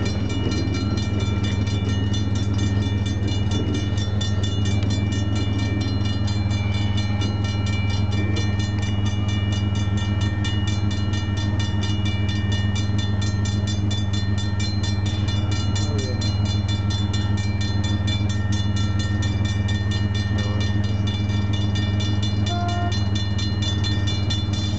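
Railroad grade-crossing warning bell ringing steadily with an even, rapid strike, over a steady low engine hum.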